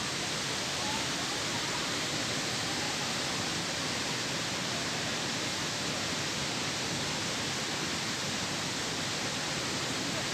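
Water pouring down the Croton Dam spillway: a steady, even rush.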